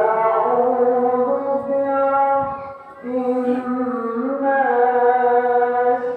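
A person's voice drawn out in two long, steady-pitched wordless tones, with a short break about two and a half seconds in.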